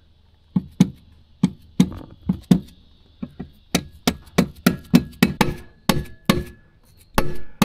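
A mallet knocking repeatedly on the metal mounting bracket of a motorcycle top case, about three blows a second, driving the case onto its base plate until it seats. A faint ringing tone carries under the later blows.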